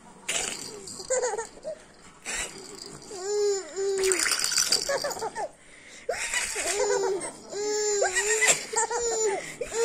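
A baby giggling and squealing in short up-and-down bursts, a pair about three seconds in and a longer run from about six seconds on, with a rattling sound alongside.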